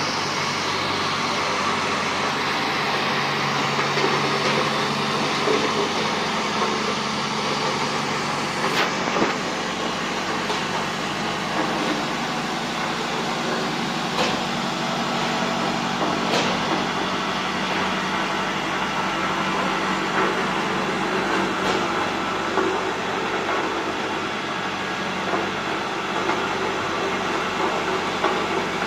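Road roller's engine running steadily, with a few sharp knocks scattered through it.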